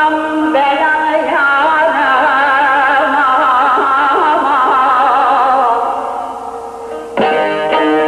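Turkish folk music: a male voice holds a long, wavering, ornamented melodic line that fades away, then plucked strings start suddenly about seven seconds in.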